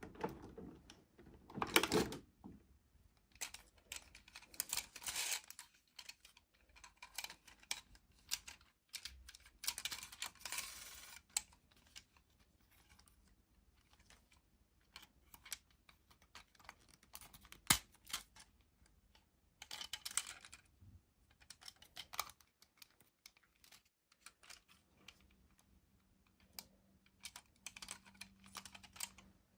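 Irregular rustling, crinkling and clicking of toy packaging and plastic toys being handled, in short bursts with a sharp click about two-thirds of the way through.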